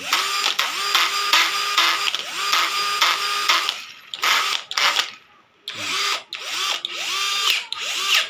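Skil 20V Max cordless hammer drill run with no bit, the trigger pulled again and again: the motor spins up with a rising whine and runs briefly each time, the bursts coming close together at first and in short separate pulls after about four seconds.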